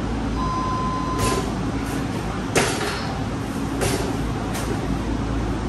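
Basketballs knocking against the backboard and rim of a folding arcade basketball machine: about five sharp knocks spaced roughly a second apart, the loudest about two and a half seconds in, over a steady low hum. A steady electronic beep lasts about a second near the start.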